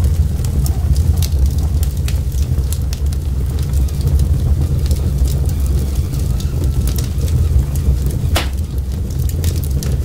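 Wood fire of burning logs: a steady low rumble of the flames with frequent small crackles and pops from the wood, and one louder pop about eight seconds in.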